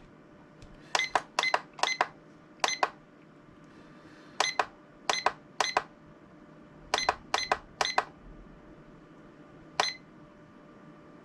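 Digital LED wall clock's buzzer giving short high beeps as its buttons are pressed in the settings menu, about eleven in all, in uneven groups of one to three.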